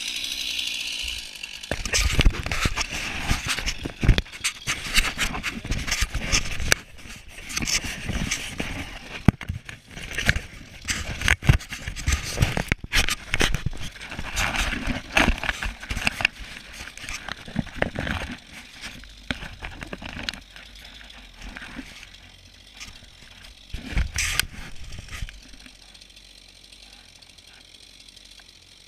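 A chainsaw's high cutting whine dies away in the first second or so. It gives way to irregular knocks, scrapes and crackles around the chainsaw mill and log, which quieten over the last few seconds to a low engine hum.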